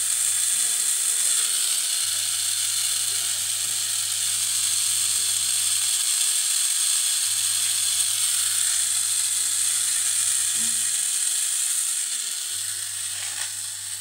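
Small battery-powered motor of a toy household appliance running, a steady high-pitched whirring that eases off a little near the end.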